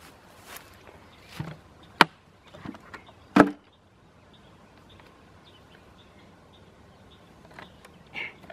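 A lidded plastic bucket handled on grass: a sharp click about two seconds in, then a louder knock about a second and a half later, as the bucket is set down and its snap-on lid pulled off. Soft rustling before, and fainter after.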